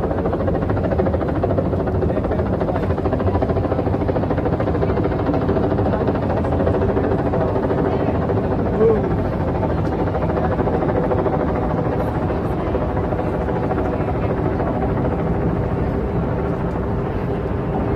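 A steady engine drone at an even pitch and level, with a brief high chirp about nine seconds in.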